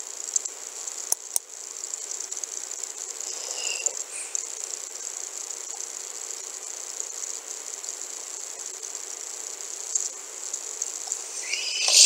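Steady high-pitched hiss from the recording microphone, with a couple of mouse clicks about a second in and a sniff close to the microphone near the end.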